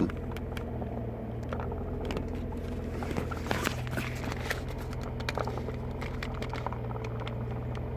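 BMW E60 manual gearbox at engine idle: a steady hum with irregular scraping and clicking, a grinding noise from the gearbox. The uploader links it to the clutch release bearing.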